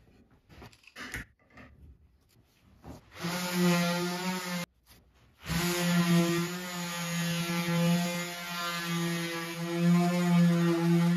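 A few faint knocks and clicks of handling, then an electric sheet sander starts about three seconds in and runs with a steady hum as it sands curved bent-log wood. It breaks off for about a second shortly after starting, then runs on.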